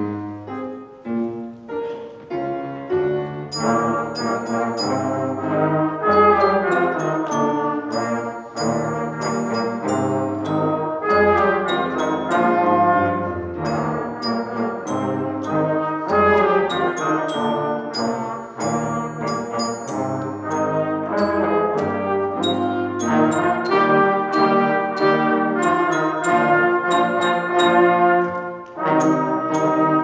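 Small beginning band playing a piece, with trombone and trumpet carrying the melody. It opens with a few separate short notes, and the fuller band sound comes in about three seconds in.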